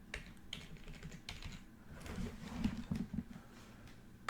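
Typing on a computer keyboard: a run of short key clicks, scattered at first and busier from about two seconds in.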